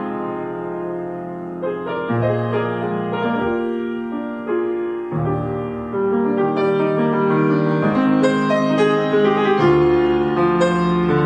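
Grand piano played solo: slow, sustained chords under a melody line, with a new chord struck every two or three seconds.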